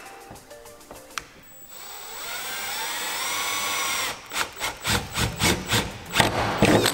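A power drill working on the car's hood: the motor whines steadily for about two seconds, then gives way to a rapid series of short bursts, about four or five a second.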